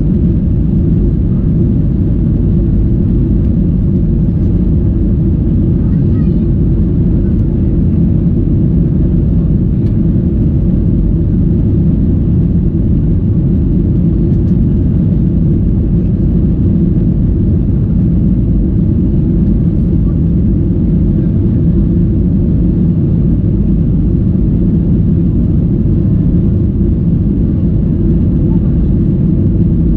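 Boeing 737-800 airliner giving a loud, steady low rumble that stays even, with no rise or fall in pitch.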